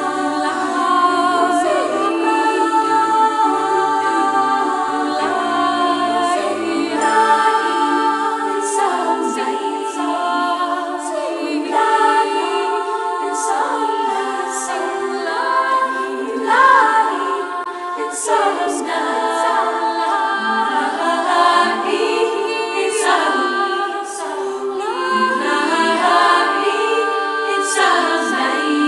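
Music: a choir of layered voices singing, with long held notes and sliding pitches, in an a cappella style.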